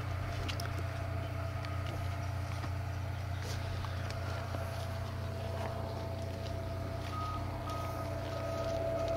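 A steady low engine hum, like a vehicle idling, holding level throughout. Near the end a faint high tone starts repeating about twice a second.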